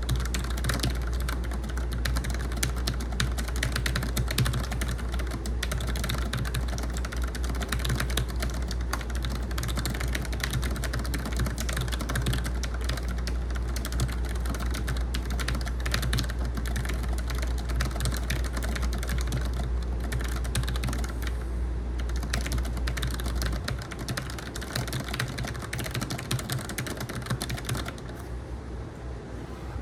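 Fast, continuous typing on a Logitech MX Mechanical keyboard with low-profile linear switches, a dense run of keystroke clacks that stops near the end. A steady air-conditioner hum runs underneath.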